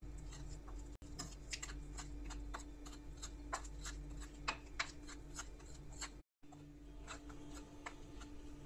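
Steel spoon scraping and clicking against a plate while stirring dry spice powders together: a run of quick scrapes and taps, broken off briefly about six seconds in, over a faint steady hum.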